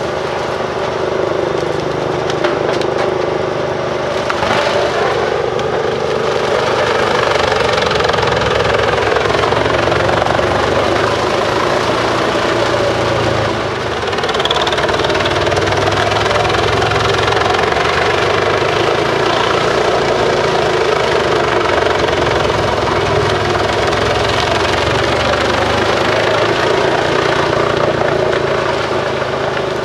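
Bruks 1006 ST truck-mounted wood chipper running steadily under load, its separate 720 hp engine and the chipping making a loud continuous rush, with a short dip about halfway.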